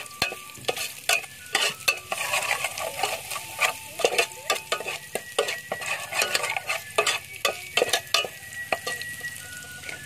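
Spoon stirring and scraping wet food in a bowl: irregular clicks and crackling.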